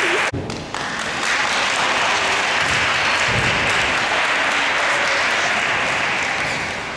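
Audience applauding steadily, with a brief dip about half a second in, tapering off near the end.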